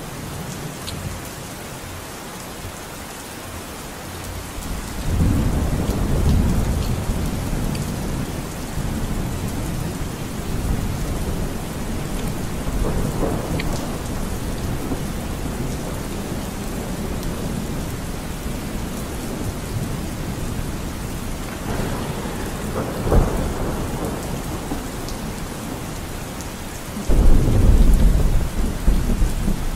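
Steady rain falling, with rolling thunder rumbling about five seconds in and again, loudest, near the end.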